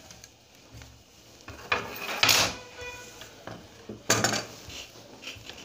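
Large steel tailoring shears set down on a cutting table with a metallic clatter and brief ring about two seconds in, followed by a second sharp knock about four seconds in.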